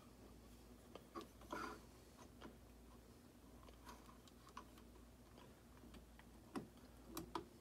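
Faint, irregular small clicks and taps of an RCBS Case Master case gauge being handled and adjusted on a bench, over a low hum; the clearest clicks come about one and a half seconds in and near the end.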